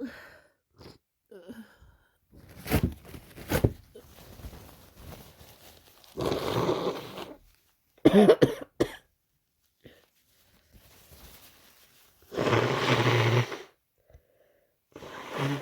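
A person with a heavy head cold making a run of congested cold sounds: several short, sharp coughs with sniffling and breathing in between, and two longer noisy bursts about six and twelve seconds in.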